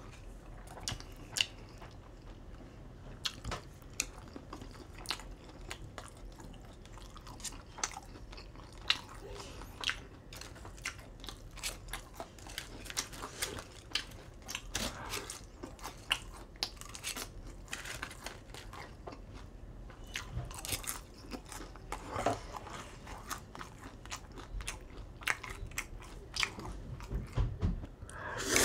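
Close-up mouth sounds of eating: chewing and crunching with many small sharp clicks. Just before the end a louder slurp of ramen noodles begins.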